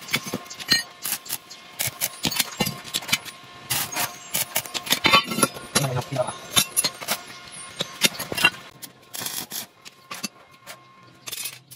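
Steel square-tube frame pieces being handled and clamped with locking pliers: an irregular run of sharp metal clinks and knocks, thinning out near the end.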